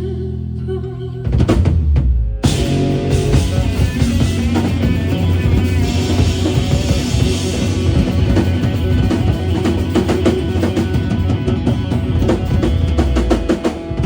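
Live rock band music with no singing: a held low chord, then a drum fill a little over a second in, breaking into the full band with pounding drums and guitars from about two and a half seconds on.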